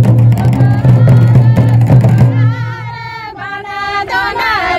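Loud drum-driven music that stops about two seconds in. A group of women then sing together in unison without accompaniment.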